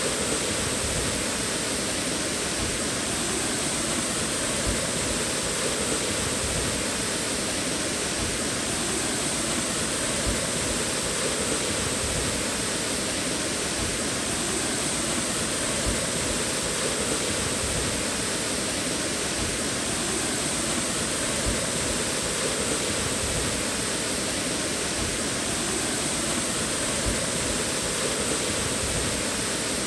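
Steady rush of water pouring over a waterfall.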